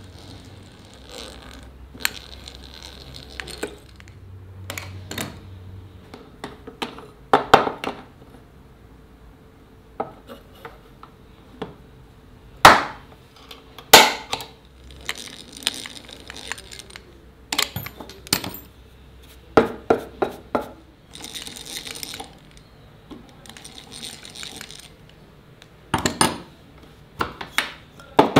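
Tools and small metal parts being handled on a workbench: an irregular series of sharp clinks and knocks, with a few short scraping strokes in between.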